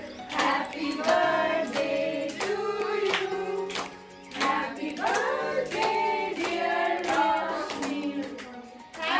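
Several voices singing a song together with rhythmic hand clapping, in phrases with short breaks between them.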